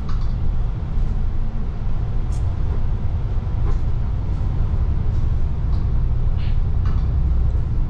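Steady low rumble of a double-decker bus's engine and tyres heard from inside the cabin while it drives along, with a few faint short clicks.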